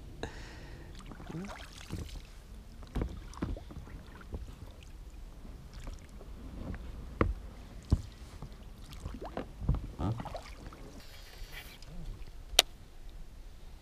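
Irregular knocks, bumps and clicks from fishing gear being handled in a small boat, with one sharp click near the end.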